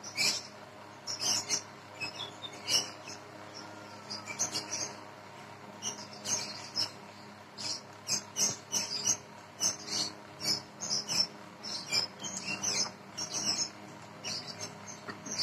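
Close-up chewing of crisp fresh fruit slices: a run of irregular, sharp crunches and wet mouth clicks.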